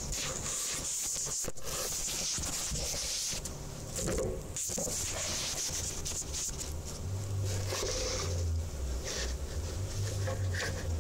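Rubbing and scraping handling noise close to the microphone as a DVD drive is moved about and fitted into a computer case, with a low hum that comes in about seven seconds in.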